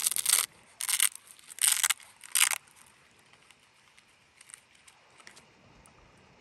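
A hidden pocket in a webbing survival belt being ripped open in four short, sharp pulls, followed by faint light clinks as the wire saw inside is handled.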